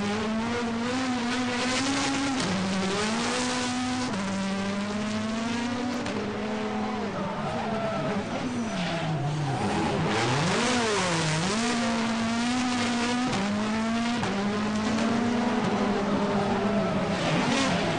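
Hyundai i20 WRC rally car's turbocharged four-cylinder engine held at high revs while the car drifts, tyres squealing on tarmac. The revs step up and down and dip sharply and climb back several times around the middle and again near the end.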